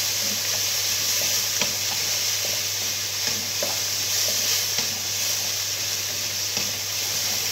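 Garlic, ginger and onion sautéing in oil in a pan: a steady sizzle, with a spatula stirring through them and scraping the pan now and then.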